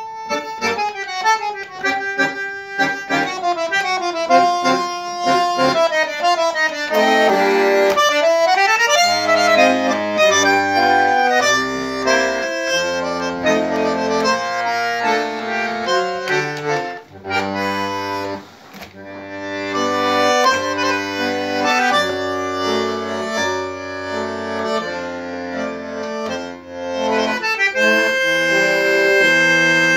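Solo bandoneón playing a melody over held bass chords, with a short break in the playing a little past halfway.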